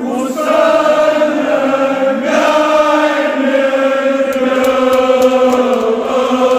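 Men chanting a Kashmiri marsiya (Shia elegy) together in long, drawn-out held notes, swelling in about half a second in.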